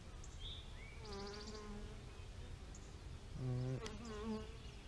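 Honeybees buzzing around an open hive, with single bees flying close past the microphone twice, their hum rising and falling in pitch as they pass. A sharp click a little before four seconds in.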